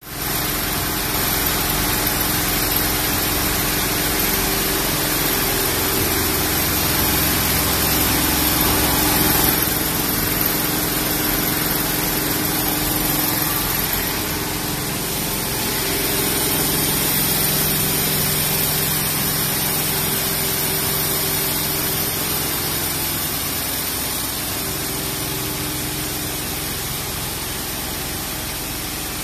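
Richpeace L1500 multi-needle quilting machine running at speed, a steady mechanical hum and whir among other running factory machines.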